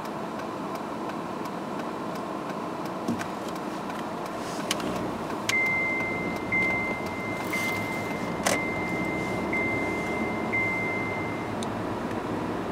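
Steady car-cabin noise. About five and a half seconds in, a high electronic tone starts, sounding in segments about once a second for roughly six seconds, with a sharp click partway through.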